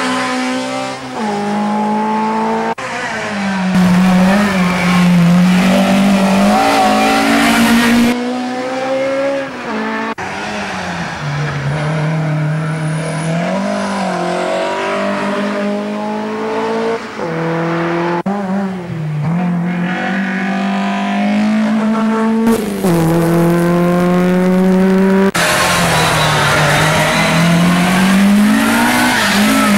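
Racing saloon car engines of the 1.4-to-3-litre class at full throttle, one car after another, each pitch climbing as the engine revs out and dropping at every upshift. Abrupt changes of sound mark cuts between passing cars.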